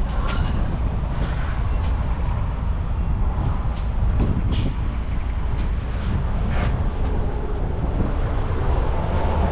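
Gas pump nozzle held wide open, fuel running steadily into a 2011 GMC Yukon Denali's filler neck without the nozzle shutting off: the sign that the tank now takes fuel and vents properly. A steady low rumble runs under it.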